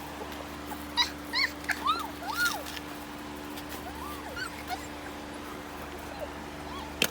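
Four-week-old puppies whimpering and yipping in short, high-pitched cries that rise and fall: a cluster in the first few seconds and a few more around four to five seconds in.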